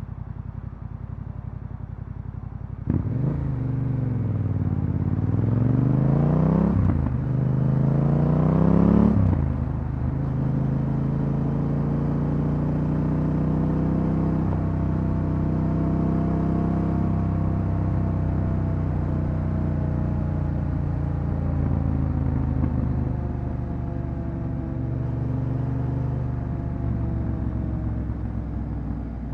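Yamaha Ténéré 700's 689 cc parallel-twin through an Akrapovič exhaust. It runs low for about three seconds, then opens up and pulls hard, rising in pitch through two gears with a shift about seven seconds in. From about ten seconds it settles into a steady cruise, the engine note drifting gently up and down.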